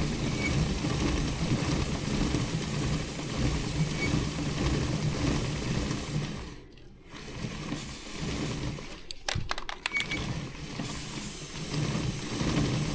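A motorcycle drive chain being turned by hand and rolling over its sprockets while lube is put on the freshly cleaned chain, a steady mechanical whirring and ratcheting. It stops briefly twice, the second time with a few sharp clicks.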